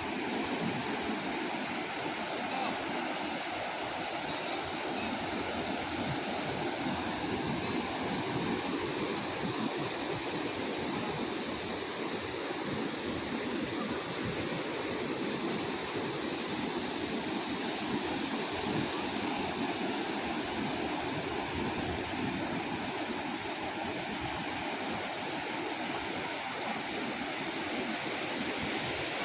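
Ocean surf on a beach: a steady, even rush of waves with no distinct breaks standing out.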